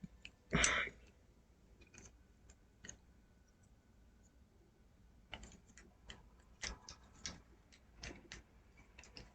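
Faint, scattered clicks of plastic model-kit parts being handled and pressed together, with a short hissing noise about half a second in.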